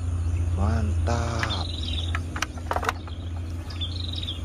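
Outdoor ambience: a steady low rumble under everything, a short high trilling chirp from a bird or insect heard twice, and a few sharp handling clicks in the middle.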